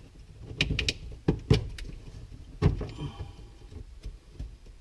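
Handling noise from wiring being pushed through a panel: a few separate sharp knocks and clicks of plastic and wires over a faint rustle.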